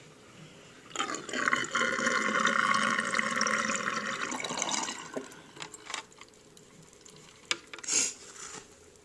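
Water running for about four seconds, starting about a second in and fading out about five seconds in, as the water in a flooded Lego model is let out. A few faint clicks and a short knock come near the end.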